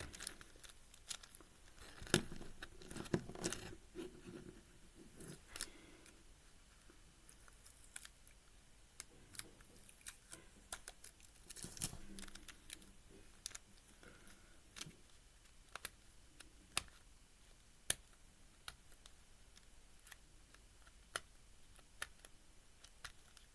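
Plastic pieces of a 5x5 puzzle cube clicking and tape rustling as the cube is handled and the tape is peeled off. Scattered sharp clicks throughout, with busier rustling stretches near the start and about halfway.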